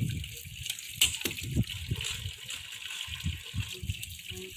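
Water running and splashing as radishes are washed by hand, with a few knocks from the handling.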